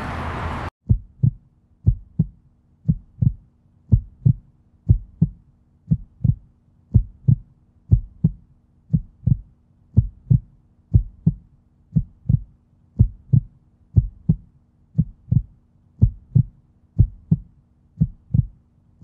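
Heartbeat sound effect: paired low thumps, lub-dub, about once a second, over a faint steady hum. It starts when the outdoor background noise cuts off abruptly.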